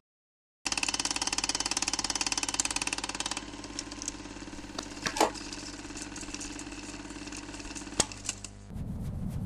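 Sound design for a production-company logo: after a brief silence, a steady, rapidly pulsing mechanical drone with held tones starts. It drops in level about three seconds in, with a short sweep near the middle and a sharp hit about eight seconds in.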